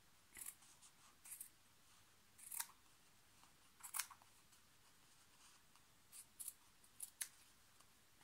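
Small scissors cutting through fabric: about eight short, crisp snips at uneven intervals, faint overall.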